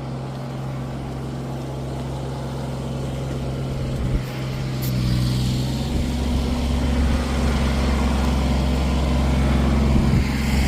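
An engine running with a steady low hum, gradually getting louder; a bit noisy. There is a brief knock about four seconds in.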